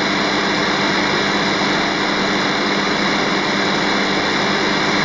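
Loud, steady static with a low hum through it from a Yaesu FRG-8800 receiver's speaker, tuned to 27.830 MHz AM. It is RF interference radiated by a cheap Fusion switch-mode power supply, wiping out the signals on the 27 MHz CB band.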